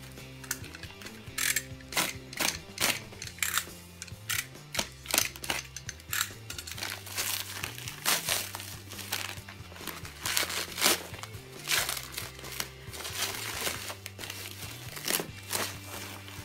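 Plastic bubble wrap being handled and pulled open, crinkling in many short, sharp crackles, over soft background music.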